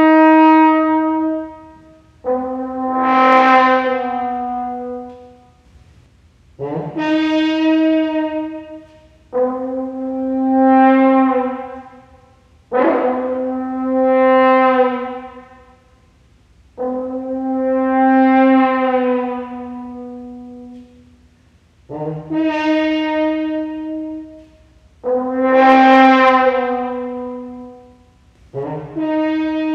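Unaccompanied French horn playing a slow series of about nine long held notes. Each note is attacked strongly and then dies away, with short pauses between them, and a few begin with a brief lower note just before.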